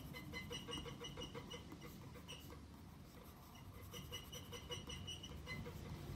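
White pencil shading on grey toned sketch paper: quick back-and-forth scratchy strokes, about five a second, with a pause of a second or so in the middle.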